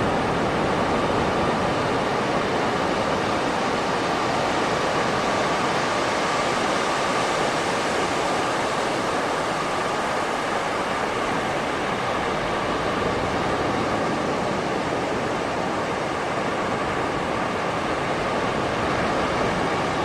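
Ocean surf washing on a beach: a steady, even rush of breaking water without distinct surges.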